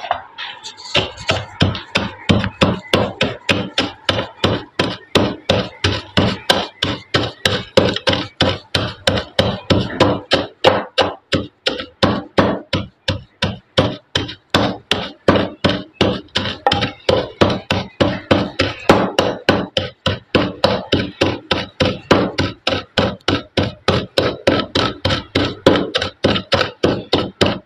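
Pestle pounding roasted whole spice seeds in a mortar, striking steadily about three times a second. The seeds are being crushed only coarsely for a pickle masala.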